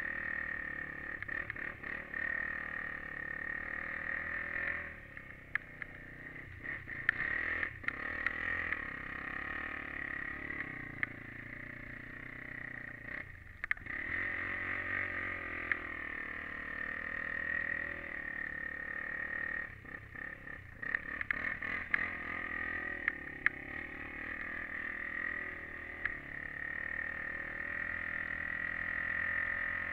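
Honda 400EX quad's single-cylinder four-stroke engine running under throttle, its buzz rising and falling as it is ridden, easing off briefly about five seconds in and again about twenty seconds in, with scattered knocks.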